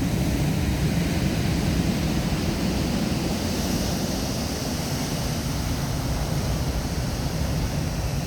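Black Sea storm surf: a continuous, deep rushing noise of heavy waves, with a brighter hiss of water swelling about four seconds in.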